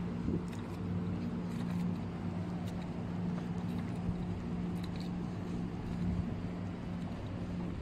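A steady, low mechanical hum, like a running motor or engine, with faint footsteps on a dirt path.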